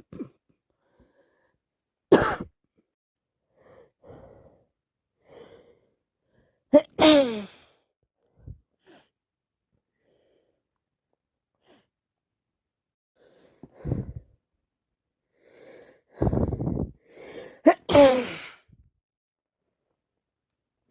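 A woman with a heavy cold and chest infection sneezing and coughing: two loud sneezes, one about seven seconds in and one near the end, each with a falling cry, and short coughs between them. Faint breaths and sniffs fill the quieter gaps.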